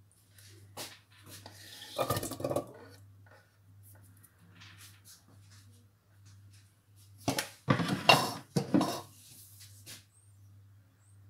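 Kitchen utensils and dishes clinking and knocking against each other in short bursts, a small cluster early and a louder flurry later on, over a faint low hum.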